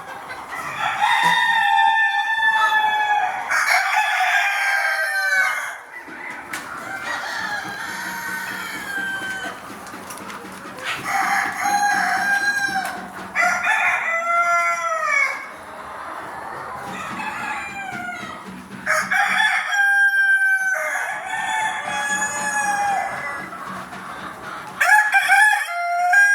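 Desi chickens: roosters crowing again and again, calls overlapping one another, with hens clucking in between.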